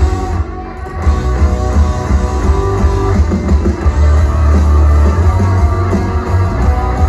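Live rock band with guitars playing through a loud PA, with heavy bass. The music dips briefly about half a second in, then comes back at full level.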